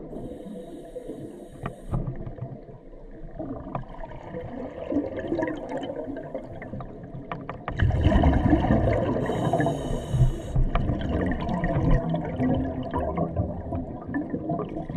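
Underwater sound of a scuba diver breathing through a regulator: a high hiss of inhalation near the start and again about ten seconds in, with bubbling exhalation that grows louder from about eight seconds in.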